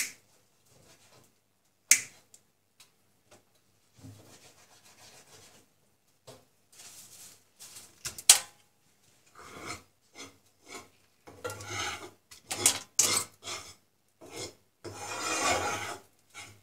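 Electrical cable being stripped by hand: sharp clicks and snips at the start, about two seconds in and about eight seconds in. These are followed by bouts of rubbing and scraping on the plastic sheath, the longest near the end.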